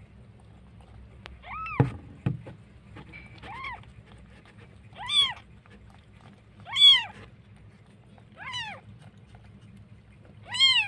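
Newborn kitten mewing: six short, high-pitched cries about every one and a half to two seconds, each rising then falling in pitch. A couple of dull knocks about two seconds in.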